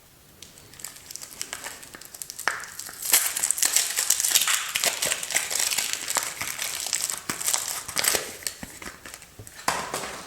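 A soap wrapper crinkling as it is unwrapped by hand. The crinkling builds over the first few seconds, is loudest in the middle, and ends with one short loud rustle.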